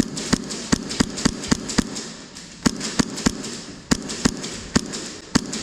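An airsoft gun firing rapid semi-automatic shots, a string of sharp cracks about three or four a second, with a short pause about two seconds in.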